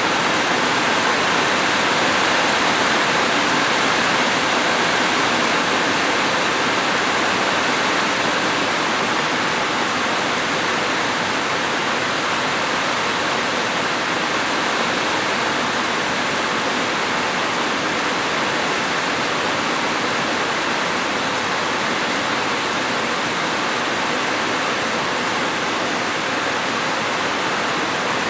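Heavy rain falling steadily, a dense, even hiss with no separate drops or thunder.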